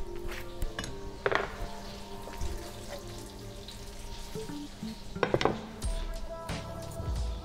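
Stainless-steel saucepans and metal utensils clinking and knocking as they are handled and stirred, with a few sharper clanks about a second in and just past five seconds, over soft background music.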